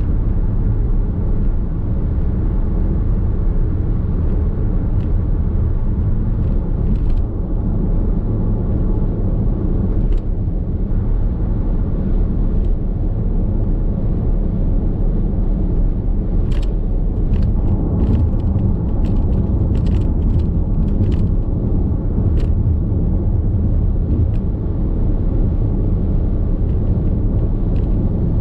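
Steady road noise inside the cabin of a Nissan X-Trail Hybrid at expressway speed: a low rumble of tyres and wind. Scattered small ticks come and go, most of them just past the middle.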